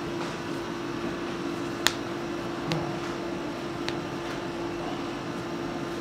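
Steady machine hum with a few sharp clicks, the loudest about two seconds in.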